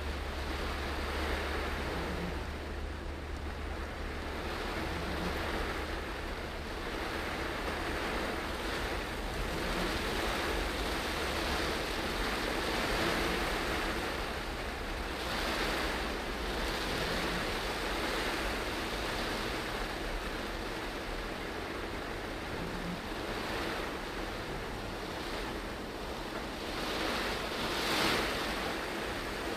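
Car driving in heavy rain, heard from inside: a steady wash of rain on the car and tyres hissing on the wet road, swelling briefly near the end.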